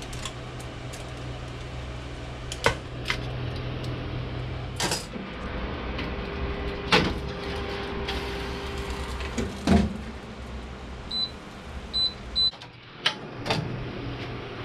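Metal tongs clicking and knocking against a wire rack and foil pan, and the pan being slid into a countertop air fryer oven, over a low steady hum that stops a few seconds in. About two thirds of the way through, the oven's control panel gives three short high beeps as it is set.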